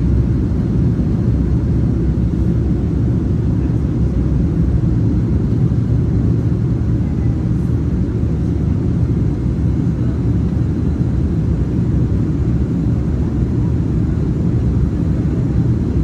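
Steady low rumble of a Boeing 787-9 Dreamliner's engines and airflow, heard inside the passenger cabin in flight shortly after take-off.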